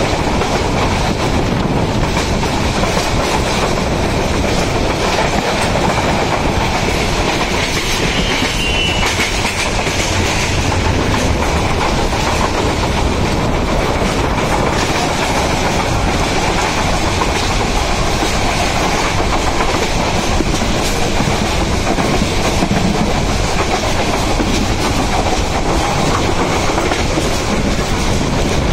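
Moving passenger train heard from inside a carriage at an open window: a steady rumble with the wheels clattering over the rail joints, and a brief faint high squeal about eight seconds in.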